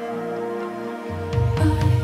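Background music: soft, sustained notes, with a bass line and drum beats coming in about halfway through.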